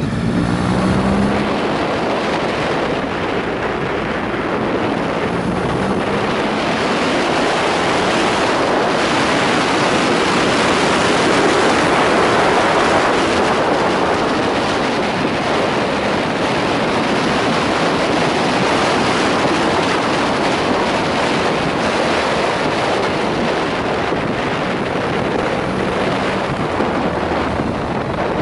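Wind rushing over the camera microphone on a moving motorcycle, with the engine running underneath; about a second in, a short rising engine note as the bike accelerates.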